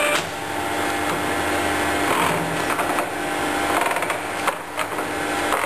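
Colchester Mascot lathe headstock with a steady mechanical hum, and several clicks and clunks as the spindle speed-selector lever is worked and the gears are nudged into mesh.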